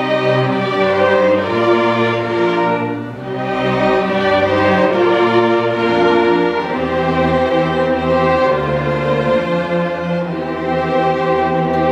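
Orchestra of bowed strings (violins, cellos and double basses) playing slow, sustained chords. There is a brief dip in loudness about three seconds in, then the chords swell again over changing bass notes.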